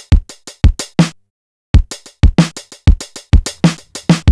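Drum-machine beat finger-drummed on pads, triggering sampled drum hits in Native Instruments Maschine: deep kick thumps among sharper hits, with a short break a little over a second in before the pattern picks up again.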